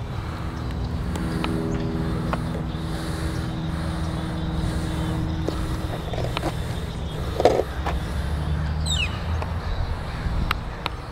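Steady low rumble with a faint hum during the first half, a few sharp clicks, and a quick high chirp about nine seconds in.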